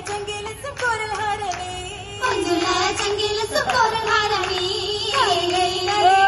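Oppana song: a group of women singing a Mappila song together, with sharp hand claps struck in time with the song.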